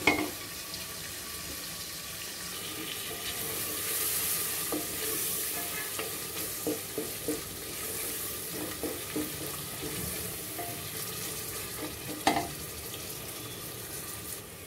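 Sliced onions sizzling in hot soybean oil in an aluminium pressure cooker pot, stirred with a wooden spatula that scrapes and knocks against the pot now and then, loudest near the end. The onions are frying down toward brown.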